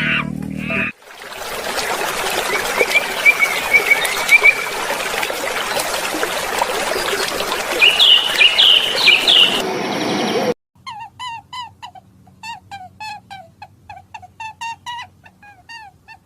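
Birds chirping over a steady rushing hiss; about ten seconds in it cuts off abruptly and a quick series of short, pitched bird calls follows, two or three a second.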